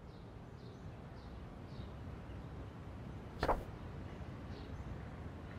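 Quiet background ambience with a low rumble and a few faint, short, falling high chirps, broken by one sharp tap about three and a half seconds in.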